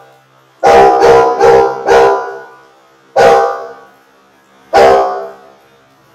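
Dog barking: a quick run of four loud barks starting about half a second in, then two single barks spaced well apart.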